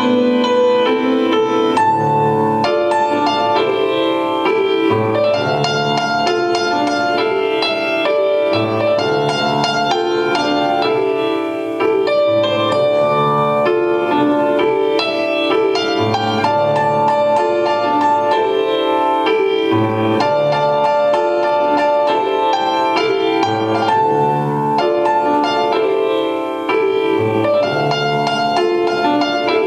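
Piano music: a flowing piece with low bass notes returning about every two seconds beneath a running melody.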